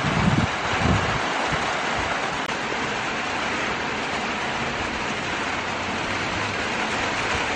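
Steady hiss of rain falling, with wind briefly buffeting the microphone in the first second.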